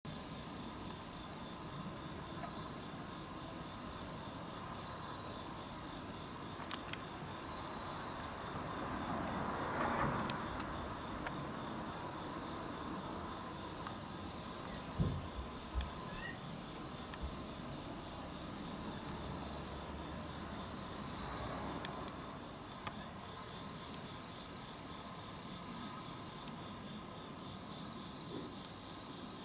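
Night insects, crickets, trilling in a steady unbroken high drone, with a second, pulsing chirp joining higher up in the second half. A soft swell of broad noise rises and fades about a third of the way in, and again past two-thirds.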